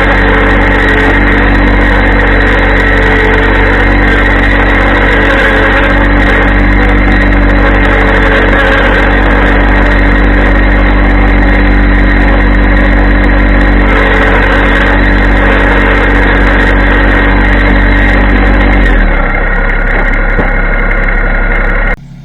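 Yanmar compact tractor's diesel engine running at working throttle while it pulls a fence off its posts, a steady, loud engine note. Near the end it drops back to a lower idle, then stops suddenly.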